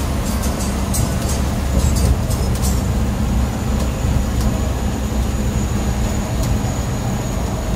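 Ashok Leyland BS4 bus on the move: steady low engine and road rumble, with rattling clicks over the first three seconds. A faint high steady tone comes in about three seconds in.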